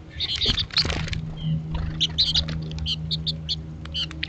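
Goldfinches chattering in quick runs of short, high chirps, with a louder burst of noise about half a second in and a steady low hum underneath.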